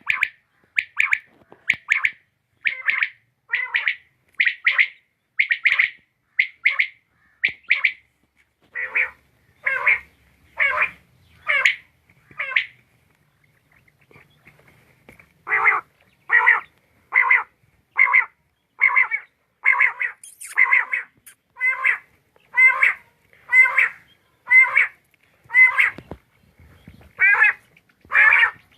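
Quail calling: short, harsh calls repeated about once a second, with a pause of a few seconds a little under halfway through before the calls resume.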